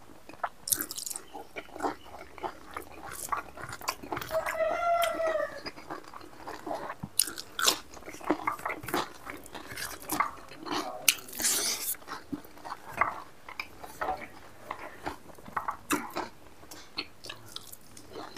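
Close-up eating: a man chewing a mouthful of rice and mithun meat with repeated wet smacks and crunches. About four and a half seconds in, a brief high, wavering cry sounds in the background.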